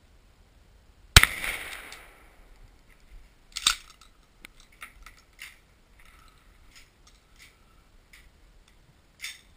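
A Remington 870 pump-action shotgun fires once about a second in, a sharp shot with a short ringing tail. About two and a half seconds later the pump is worked with a quick double clack, followed by a run of light metallic clicks from handling the gun.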